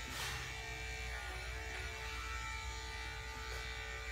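Electric dog grooming clippers running with a steady buzzing hum as they are worked over a dog's coat, reverse-clipping the legs.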